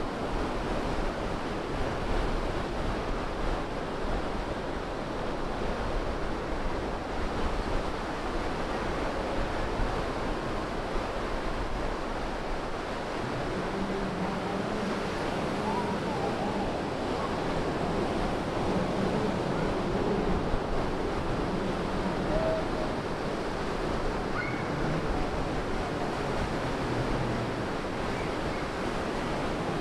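Ocean surf breaking offshore and washing up the sand around the pier pilings: a steady, unbroken rush of waves.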